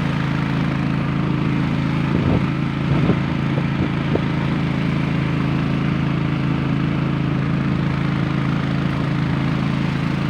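A small boat's engine running steadily at a constant speed, with a few short knocks about two to four seconds in.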